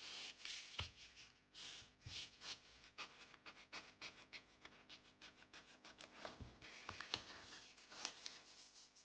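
Typing on an Epomaker Mini Cat64 mechanical keyboard with linear switches: a quick, uneven run of keystroke clacks, several a second.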